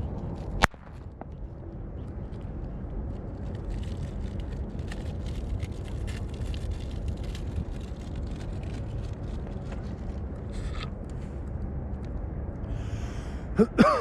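A single sharp firecracker bang about half a second in, followed by steady low wind rumble with faint scattered crackles. Just before the end comes a brief loud sound that slides in pitch.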